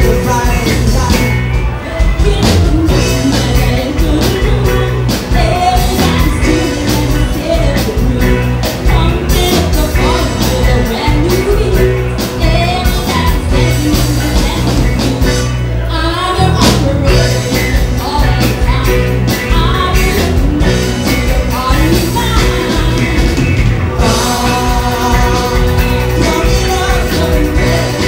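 Live rock band playing loudly, with drums, electric guitars, bass and keyboard under a singer's vocals; the low end is heavy. The music drops out briefly about halfway through, then comes back in.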